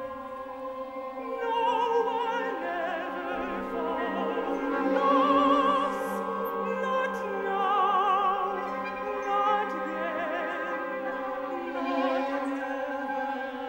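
Opera: a high voice sings with wide vibrato over held orchestral string chords. The voice comes in about a second and a half in and swells loudest around the middle.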